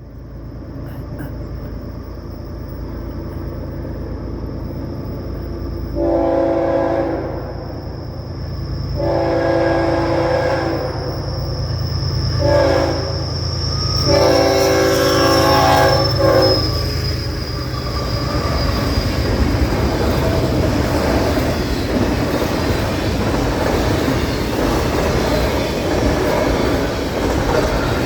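Freight train locomotive horn sounding the grade-crossing signal (long, long, short, long) over the building rumble of the approaching diesel locomotives. The intermodal train then rolls past at about 60 mph with a steady rush of wheels on rail.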